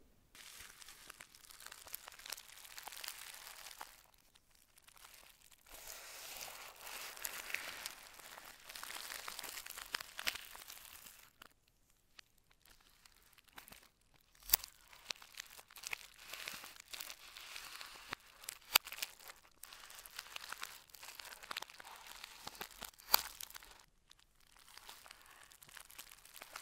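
Plastic packaging crinkling and tearing under gloved hands: a clear tape seal peeled from a smartphone box, then a plastic poly mailer crinkled and cut with metal scissors, with a few sharp snips in the second half.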